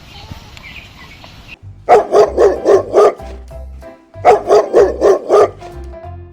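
Dog barking sound effect: two runs of about six quick barks each, separated by a short pause, with a music jingle mixed in.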